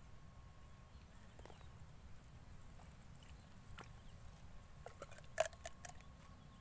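A low steady rumble, with a few scattered clicks. About five seconds in comes a quick cluster of sharp plastic clicks and crackles as a plastic-bottle fishing rig is handled.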